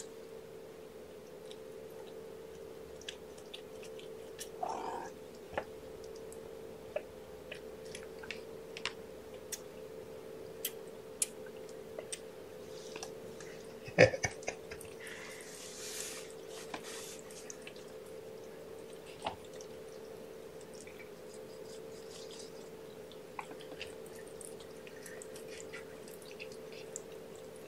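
Faint wet sucking and smacking clicks of a kitten feeding on milk, over a steady low hum, with one sharper click about halfway through.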